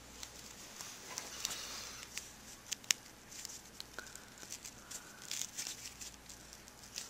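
Faint scratching, small clicks and tearing as the wound string of a baseball is picked at and pulled off, with a couple of sharper clicks around the middle.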